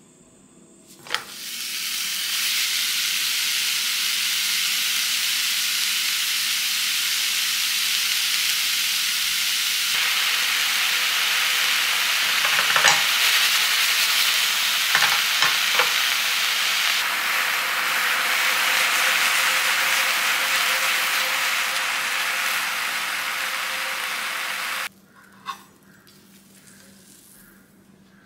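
Raw ground beef pressed onto a flour tortilla sizzling beef-side down in a hot frying pan. It starts with a knock about a second in as it goes into the pan, then a steady sizzle with a few small pops midway, and cuts off suddenly near the end.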